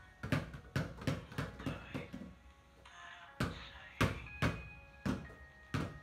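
Two basketballs dribbled on a wet tiled floor, bouncing in quick succession about twice a second, with a short pause about two seconds in before the dribbling picks up again.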